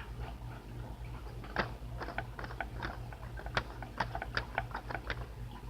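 Light, irregular clicks and taps of small plastic toy figures being handled, about a dozen over a few seconds, over a steady low hum.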